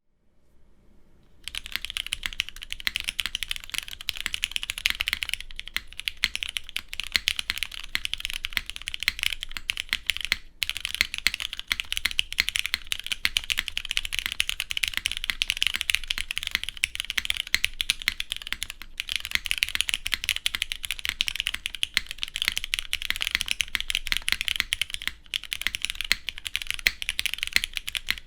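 Continuous fast typing on a custom mechanical keyboard with lubed, non-broken-in Cherry MX Black linear switches on a polypropylene plate and GMK keycaps: a dense stream of keystroke clacks with a slight scratchy, chalky edge from the unbroken-in switches. It starts about a second and a half in, with brief pauses around ten and nineteen seconds.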